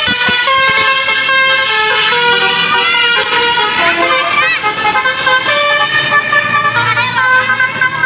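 Tour bus's Basuri telolet musical horn playing a tune: loud held horn notes that step from pitch to pitch every second or so.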